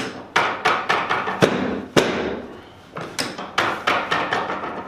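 Chiropractic adjustment: a quick, irregular series of sharp cracks and knocks, about a dozen.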